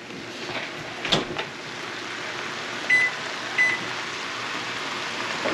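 Two short high beeps from an electric range's touch controls as the burner setting is changed, over a steady hiss, with a single knock about a second in.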